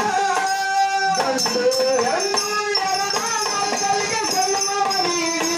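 Instrumental interlude of a devotional bhajan: a harmonium plays the melody in held notes that step from pitch to pitch, over steady hand percussion.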